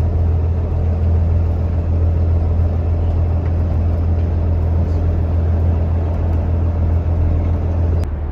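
Steady low drone of a sightseeing boat's engine while under way, over a rushing wash of water and wind. It breaks off with a click near the end.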